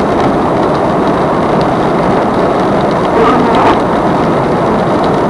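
A 4x4 vehicle driving, with a steady, dense rumble and hiss of engine and road noise.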